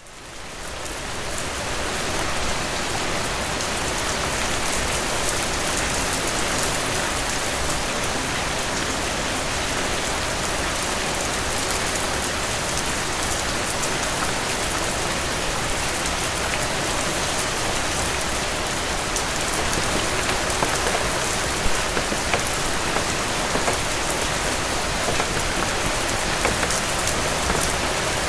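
Steady rain falling and pattering on a surface, with distinct drops ticking here and there, fading in over the first couple of seconds.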